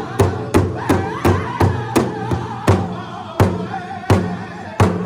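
Powwow big drum struck in unison by a circle of drummers, with a group of men singing an intertribal song over the beat. The strikes come about three a second, then slow to about one every 0.7 s a little past halfway.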